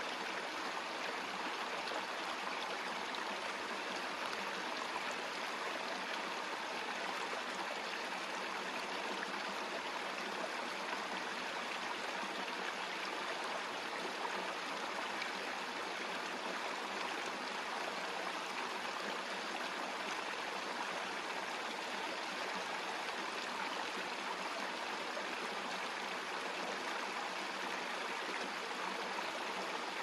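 Babbling brook running steadily, an even, unbroken rush and gurgle of water.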